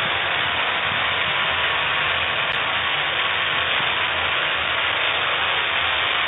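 Steady, even static-like noise with no clear tone, and a single brief click about halfway through.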